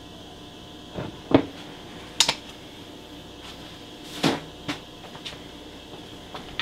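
A silicone caulk tube and hard plastic and metal smoke-unit parts knocked and set down on a workbench: about half a dozen sharp clacks, the loudest a little over a second and about two seconds in, over a steady background hum.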